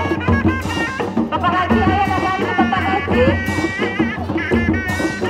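Reak ensemble music: dogdog drums struck by hand in a steady, busy rhythm, with a high, wavering, ornamented melody line over them.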